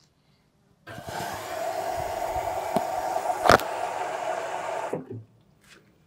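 LG front-load washing machine's water inlet valve opening and water rushing into the drum for about four seconds, then cutting off sharply, with one sharp click about halfway through. It is the machine filling at the start of a wash cycle.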